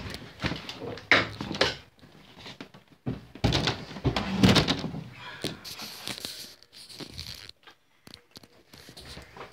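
Irregular thumps and rustling handling noise in a small room, with louder knocks about one second in and again around four seconds in.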